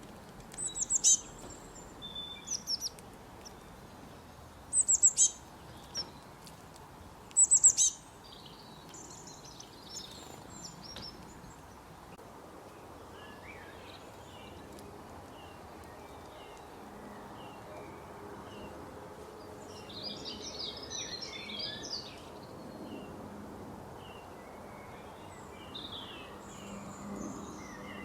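Small birds chirping: a few loud, sharp, high-pitched chirps in quick clusters during the first eight seconds, then softer scattered twittering, with a busier burst of chatter about twenty seconds in.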